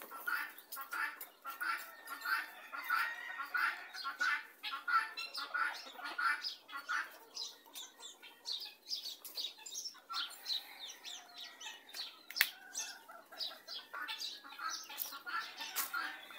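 Chickens clucking and calling in quick short notes, with scattered sharp clicks and crunches among them; the calls thin out around the middle and pick up again near the end.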